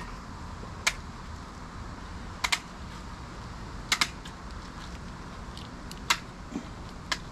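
Tin snips cutting through a gar's hard, scaly skin along the side of the fish: sharp snips every second or two, some in quick pairs.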